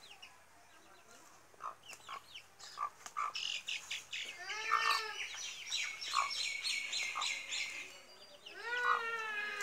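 Chickens calling: a rapid run of high, quick chirps through the middle, with a drawn-out arching call about halfway through and another near the end.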